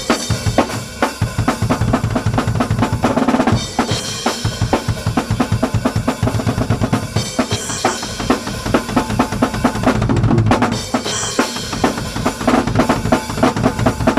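Recorded music dominated by fast, busy drum-kit playing, with bass drum and snare hits packed closely together at a steady loud level.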